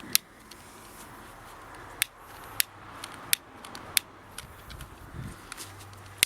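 Long piezo utility lighter being clicked repeatedly: about half a dozen sharp clicks a second or so apart, the lighter failing to catch at once.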